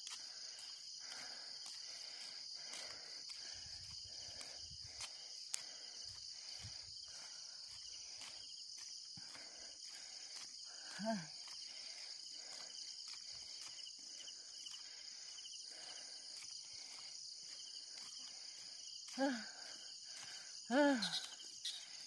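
Steady high-pitched chirring of insects such as crickets in rural roadside vegetation. A short voice sound comes about halfway through, and two more near the end.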